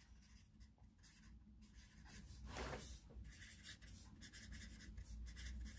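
Faint strokes of a felt-tip marker writing on lined paper, starting about two seconds in after near silence.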